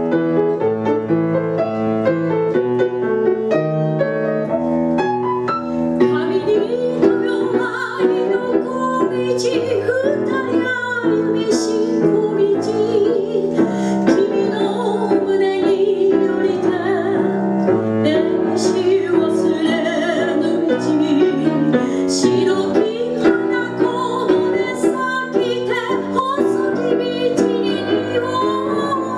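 Grand piano playing a tango, joined about six seconds in by a woman singing in Japanese into a microphone, with the piano accompanying her.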